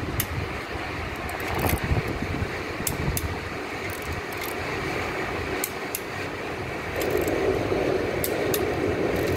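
Steady machine-like background noise with scattered light clicks of hand tools at work on an engine block. The background grows louder about seven seconds in.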